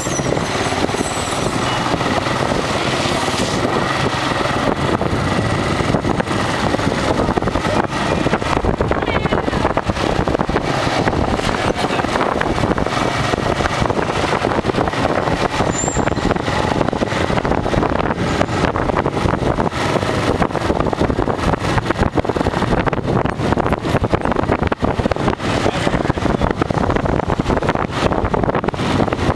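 Motorbike riding through city traffic: steady rushing and buffeting of wind on the microphone over the bike's engine and the surrounding street traffic.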